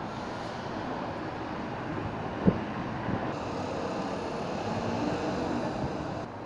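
Road traffic passing on the street below, a steady rush of engine and tyre noise, with a single sharp knock about two and a half seconds in.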